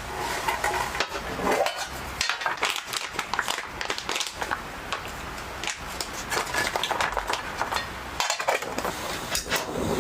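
Dishes and utensils clattering and clinking as they are handled: a dense, irregular run of small knocks.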